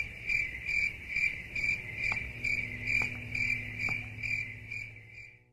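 Cricket chirping steadily at about three chirps a second, fading out near the end.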